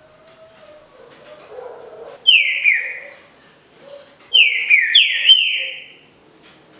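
Green-winged saltator (trinca-ferro) singing its 'canto liso' (smooth) song: loud whistled notes that slide downward, a short phrase about two seconds in and a longer phrase of several notes about four seconds in.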